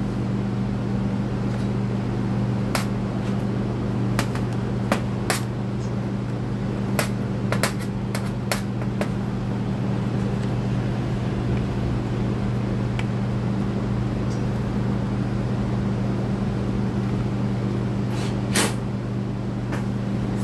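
Steady hum of shop fans, with scattered sharp clicks and taps as screws and a screwdriver are handled against a metal workbench while the recoil housing screws come out. The clicks come in a cluster in the first half and once more, loudest, near the end.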